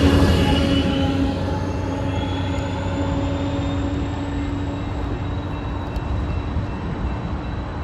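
Amtrak Cascades passenger train with a trailing Siemens Charger diesel locomotive passing slowly close by, its rumble and engine hum loudest at first and then fading steadily as it moves away down the track.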